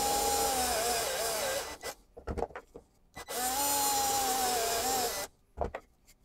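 Cordless drill with a 10 mm bit boring dowel holes through a plywood disc into wood. The motor whines steadily, then its pitch drops as it slows and stops. There are two runs: the first ends under two seconds in and the second starts about three seconds in, with a few light knocks between and after.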